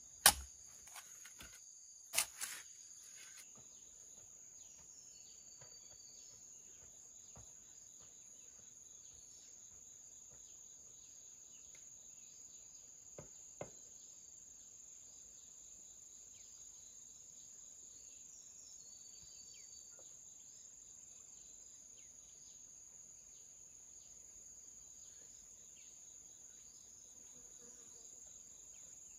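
Two sharp thuds in the first few seconds, the first the loudest, as a tool packs wet soil around a wooden post. After that a faint, steady, high-pitched insect drone carries on.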